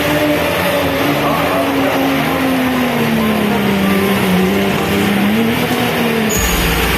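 Off-road 4x4 engine running under load, its pitch wavering, sagging and then rising again. About six seconds in, a deep bass sound comes in.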